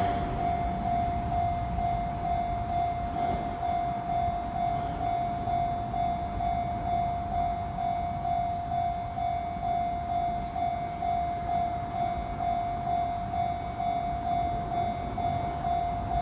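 Japanese level-crossing warning bell ringing steadily, a single high clang repeating about twice a second, over a constant low rumble.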